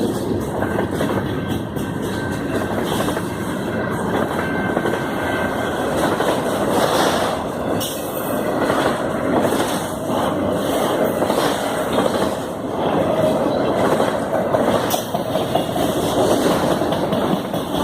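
Canadian Pacific freight train rolling past: a steady rumble of steel wheels on rail, with irregular clicks and clacks from the cars.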